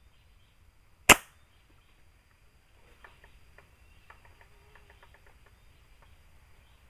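PCP bullpup air rifle firing once about a second in: a single sharp crack with a short ring. A run of faint clicks and rustles follows a couple of seconds later.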